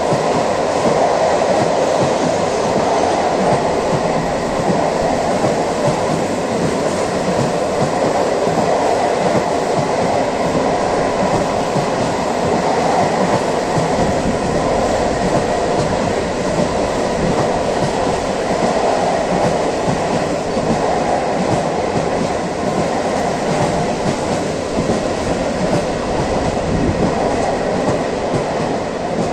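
Long freight train of loaded car-carrier wagons rolling past at steady speed: continuous noise of steel wheels running on the rails.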